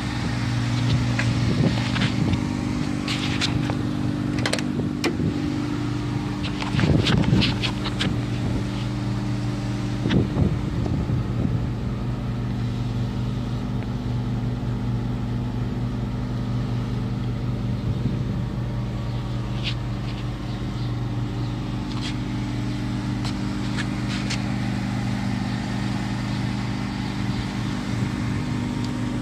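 1984 Mazda RX-7's rotary engine idling steadily. A few clicks and knocks come through in the first dozen seconds.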